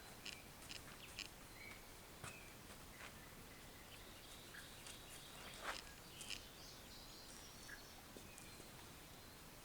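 Near silence: faint background hiss with scattered light clicks and a few faint high bird chirps.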